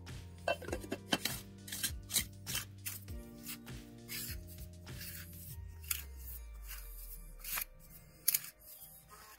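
Background music over light clicking and rubbing of plastic as the oil filter cap is screwed by hand into its filter housing.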